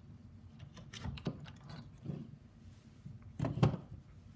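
Light clicks and knocks of a chainsaw's bar, chain and tensioner being handled, with a louder cluster of knocks a little over three seconds in.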